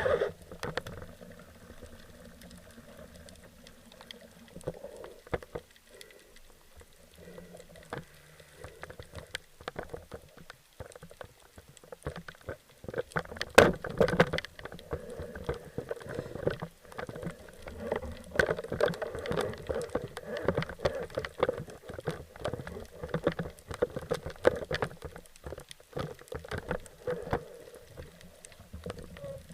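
Underwater sound heard through a waterproof action-camera housing: dense crackling clicks and the wash of water moving past, growing louder and busier from about halfway through.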